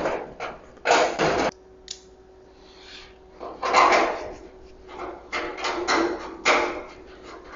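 Thin sheet-metal fire pit parts, the heat shield and firebox, clanking and scraping as they are handled and fitted together, in a series of separate rattling bursts.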